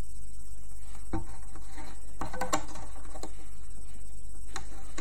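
A handful of light plastic clicks and taps as rubber loom bands are hooked and stretched over the pegs of a plastic band loom, over a steady low hum.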